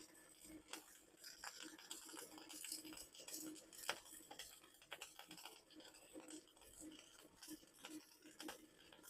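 Near silence: faint scattered small clicks and light rustling, with one sharper click about four seconds in.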